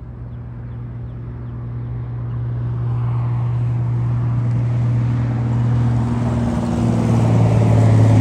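Amtrak passenger train led by a Siemens Charger diesel locomotive approaching slowly, its engine drone steady in pitch and growing steadily louder as the rumble of the train builds.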